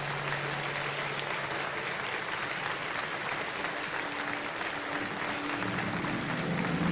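Audience applauding steadily in a hall, with soft held music notes under it and music coming in near the end.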